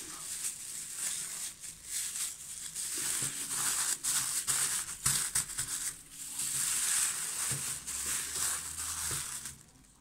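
Thin plastic freezer bag crinkling and rustling in irregular crackles as it is twisted and tied shut around a load of rosehips; the crinkling stops shortly before the end.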